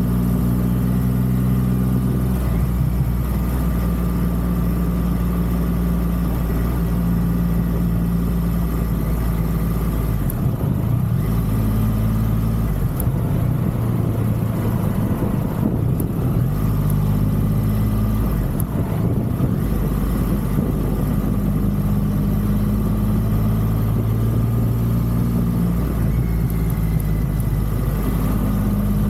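Triumph Rocket 3's three-cylinder engine running under way, its pitch settling at one speed and then stepping up or down several times, with a rumble of wind noise twice.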